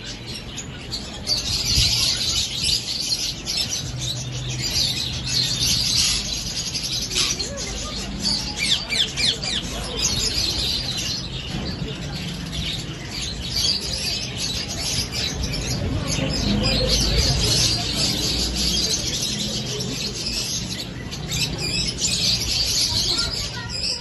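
Many caged parakeets and other small cage birds chirping and squawking at once: a dense, unbroken chatter of high chirps.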